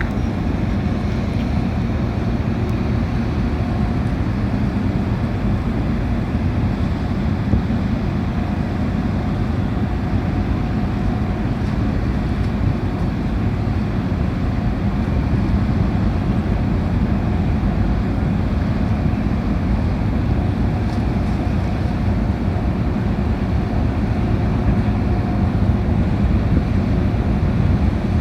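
The car ferry's engines running steadily in a low drone with a faint steady hum, with wind on the microphone. The ferry is manoeuvring into port, turning before docking.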